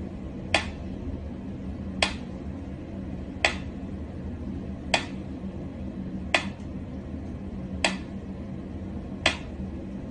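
Mechanical pyramid metronome ticking at a slow, steady beat, one sharp click about every second and a half.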